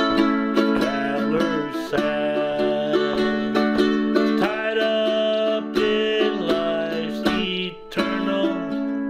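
A man singing to his own strummed ukulele in a folksy, hobo-ballad style.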